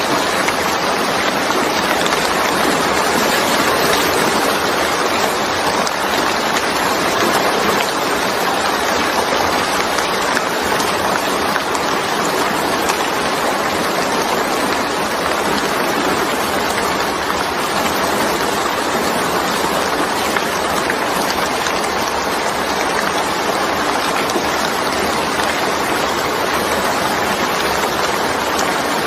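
Steady, dense rainfall, an even hiss of falling rain without a break or change.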